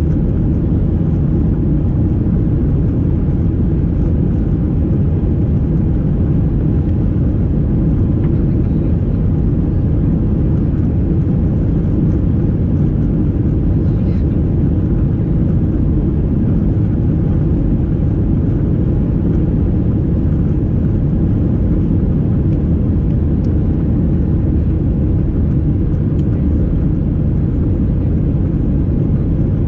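Steady, loud cabin noise of a Boeing 737-800 with its CFM56-7B turbofans running, heard from a passenger window seat: a low, even rumble that holds level throughout.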